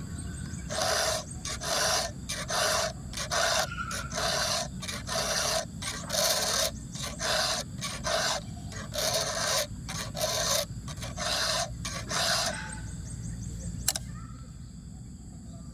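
Chainsaw chain being sharpened with a hand file: about fifteen even rasping strokes, a little under one a second, which then stop, followed by a single sharp click.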